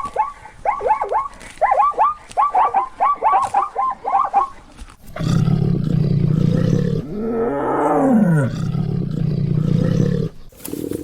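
A chicken making rapid clucking calls, about three or four short falling calls a second. About five seconds in, a large animal gives one long, low roar that dips in pitch near its end and stops suddenly.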